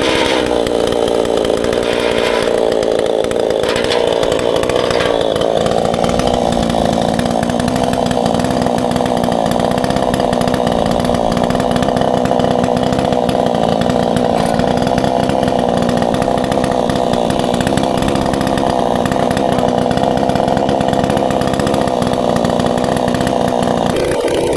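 Proyama gas chainsaw in an Alaskan chainsaw mill, running at steady high revs while ripping lengthwise through a pine log. Its pitch shifts a little in the first few seconds and then holds steady under load. The owner finds the chain dull: it is grinding out powdery dust instead of chipping.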